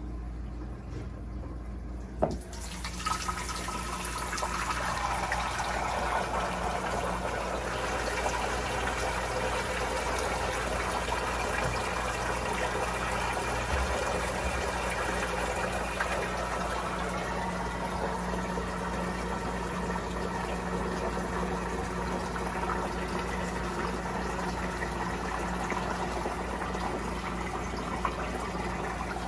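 Water pouring and splashing into a new Fiji 24 acrylic reef sump as the tank's overflow drain line starts flowing. A sharp click sounds about two seconds in, then the water comes in steadily over a low hum.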